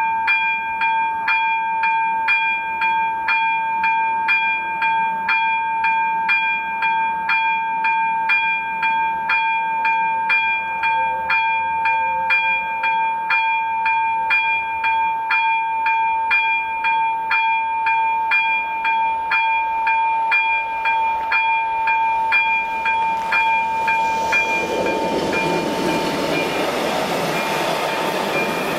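A level-crossing warning bell rings in regular strikes about twice a second over a steady ringing tone. About 24 seconds in, a passenger train hauled by an electric locomotive rolls through the crossing, its wheels on the rails making a loud rushing noise under the bell.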